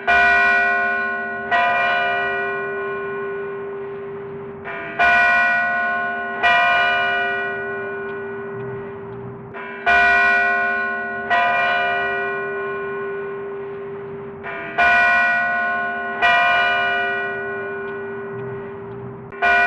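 Large bell struck in pairs, the two strikes about a second and a half apart, with a new pair roughly every five seconds, nine strikes in all. Each strike rings on and fades slowly, and a low steady hum of the bell carries between the strikes.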